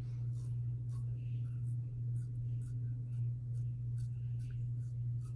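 Safety razor with a Gillette blade scraping stubble through shaving lather in quick short strokes, about two to three a second, over a steady low electrical hum.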